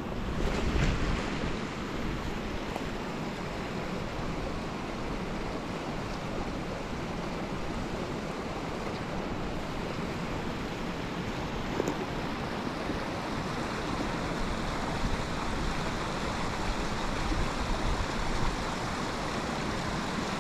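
A small creek running over a shallow riffle: a steady rushing of water.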